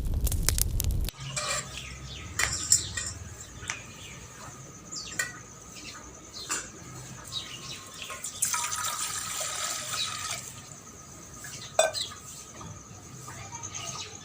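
Crackling of the burning sawdust stove's fire, cut off about a second in. Then birds chirping, with scattered light clinks and about two seconds of splashing water near the middle.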